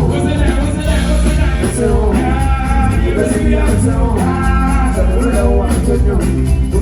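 Live band playing a song at full volume, with heavy bass, a steady beat and a voice singing over it.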